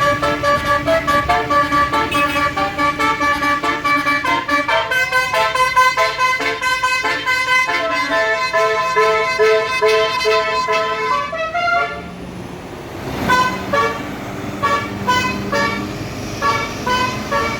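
Bus Basuri telolet musical air horn playing a fast multi-note tune in quick stepped notes. It breaks off for about a second two-thirds of the way through, then plays on again.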